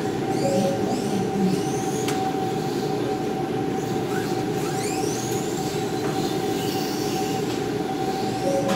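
Kyosho Mini-Z 1:28-scale electric RC cars running laps. Their high-pitched whines rise and fall several times as they pass, over a steady low rumble and a constant hum.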